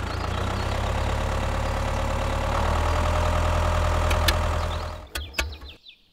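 Tractor engine running steadily at a low idle-like chug. It fades out about five seconds in, followed by a few sharp clicks.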